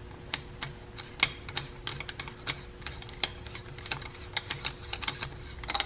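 Aluminium canister of a JLT oil catch can being unscrewed by hand: an irregular run of light metallic clicks and ticks, several a second.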